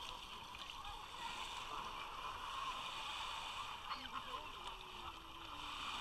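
Busy beach ambience: a steady wash of distant chatter from many bathers, with small waves lapping and splashing at the shoreline. One voice stands out briefly about four seconds in.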